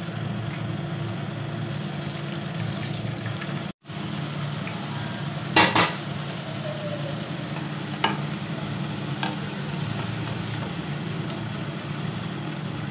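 Potato halves frying in hot oil in a pan, a steady sizzle, with a few short clinks of a utensil against the pan. The sizzle cuts out for an instant about four seconds in.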